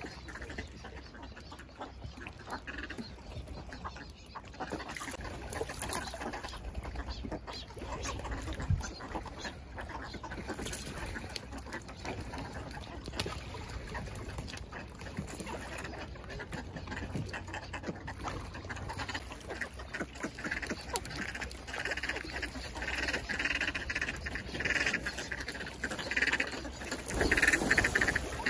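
Ducks quacking in short repeated calls that come faster and louder over the last several seconds, with a burst of wing-flapping and splashing near the end as a flock crowds onto the pier.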